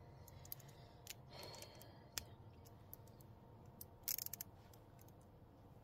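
Quiet, scattered small clicks and taps of hand tools and metal parts being handled, with a quick run of about half a dozen ticks about four seconds in.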